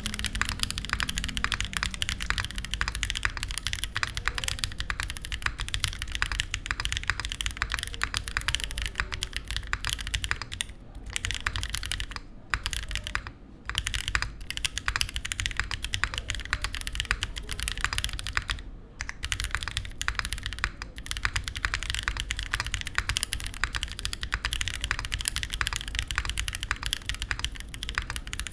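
Continuous fast typing on a RAMA Thermal mechanical keyboard with stock Aflion Runner switches, a polished aluminium beam plate, a leaf-spring mount and GMK keycaps: a dense run of key clacks. It stops briefly a few times, around the middle.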